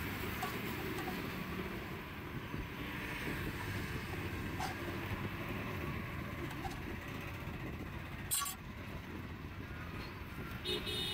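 Steady roadside traffic noise, with a short sharp clatter about eight seconds in.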